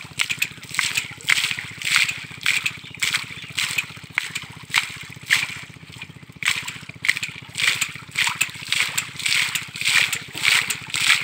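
Hand-operated tube-well boring: with each stroke of the bamboo lever, a gush of muddy water and soil spurts from the top of the boring pipe, in a steady rhythm of about two splashing gushes a second.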